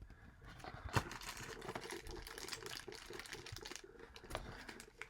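Hands handling a blind-box figure's plastic packaging: soft crinkling with a run of small clicks and one sharper click about a second in.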